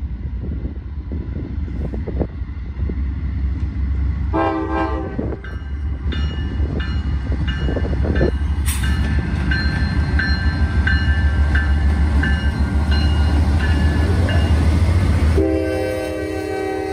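Diesel freight locomotive, a GE Dash 9, passing close with its engine rumbling loudly. Its horn sounds a short blast about four seconds in and a longer one near the end, with a bell ringing about twice a second in between.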